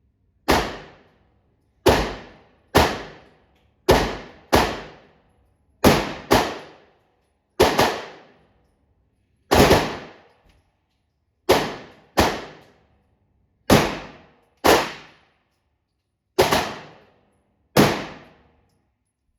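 A 9mm pistol, the Tisas Zigana PX-9, being fired: about sixteen single shots at an uneven pace, sometimes two in quick succession, each ringing off quickly.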